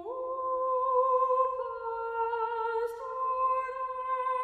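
Slow background music of long held notes, two or three sounding together, moving to new notes every second or two.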